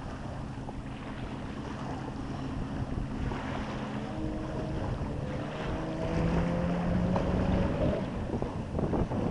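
Jet ski engine running, its pitch rising and getting louder over the second half as it speeds up, with wind buffeting the microphone.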